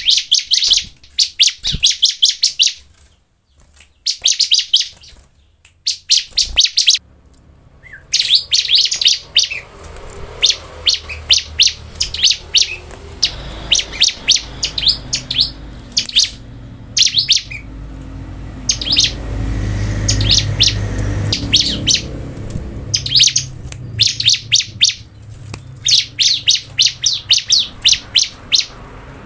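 Bar-winged prinia (ciblek) singing: short, rapid series of high, sharp chirps, phrase after phrase with brief pauses between them. A low rumble swells under the song in the middle.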